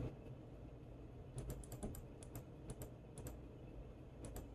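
Faint, irregular clicking at a computer, about a dozen quick clicks from about a second and a half in, as words on the on-screen worksheet are moved.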